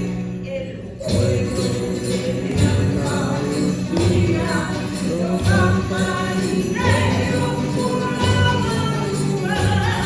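Campanilleros group performing an Andalusian Christmas carol: singing voices over small hand bells shaken in rhythm and a regular low beat.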